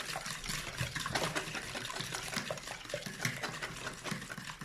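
Four raw eggs with a pinch of salt being beaten by hand in a bowl: quick, irregular, wet sloshing strokes with light clicks against the bowl.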